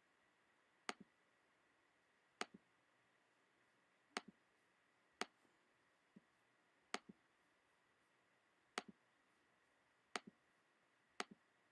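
Computer mouse clicking about nine times, spaced irregularly a second or two apart, some as a sharp click followed at once by a fainter one; otherwise near silence.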